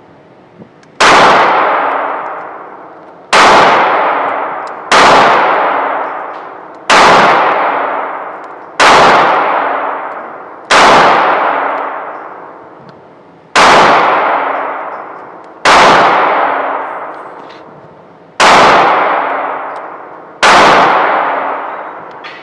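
Ten gunshots fired one at a time at a slow, even pace of about one every two seconds. Each crack echoes and dies away over a couple of seconds in the concrete indoor range.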